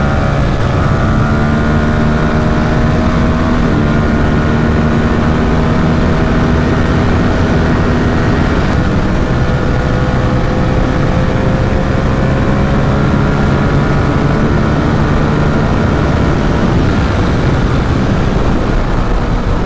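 Ducati SuperSport 950 S's Testastretta L-twin engine pulling steadily while the motorcycle is ridden at speed, its note drifting slowly in pitch. There is heavy wind rush throughout.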